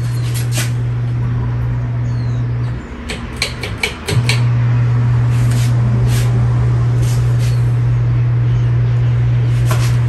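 36" Regency Cabana ceiling fan running with a loud, steady low electrical hum. The hum cuts out about three seconds in and returns abruptly a second and a half later, with scattered sharp clicks, most of them during the break.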